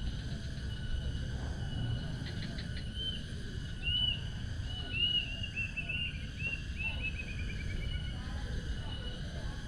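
A bird calling in a series of short arched whistled notes that speed up into a quick run, falling slightly in pitch, over a steady insect drone and a low background rumble.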